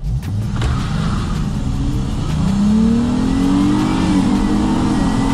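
Chrysler 300 sedan's engine revving up under hard acceleration from off idle, its pitch climbing steadily for about three seconds. About four seconds in the pitch dips briefly as the automatic transmission shifts up, then it carries on at high revs.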